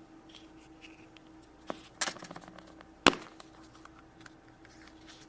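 Hands handling small plastic toy parts and packaging: a few light clicks and a crinkle, then one sharp snap about three seconds in, over a faint steady hum.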